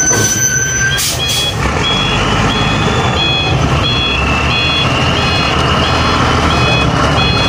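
Truck reversing alarm beeping about twice a second in alternating pitches, starting about a second in, over the steady low rumble of a heavy cargo truck's engine.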